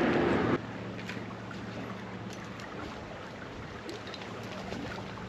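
A loud rushing noise cuts off abruptly about half a second in, leaving a quieter steady outdoor background with a faint low hum.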